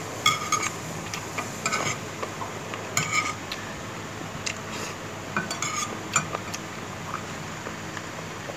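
Spoon and chopsticks clinking and tapping against a plate: a string of short ringing clicks at uneven intervals, with chewing between them.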